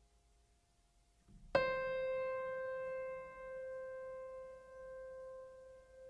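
A single piano note struck about a second and a half in, ringing on and slowly fading, its level wavering gently as it dies away.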